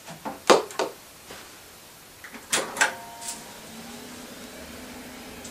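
Several loud clunks and clicks as an early-1990s desktop PC is switched on, then its fan and hard drive start up with a steady low hum from nearly four seconds in.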